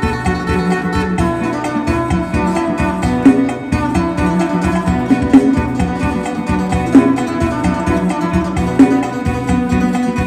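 Isan phin, the Thai plucked lute, playing a fast lam sing melody in quick plucked notes over a held low drone and a steady beat.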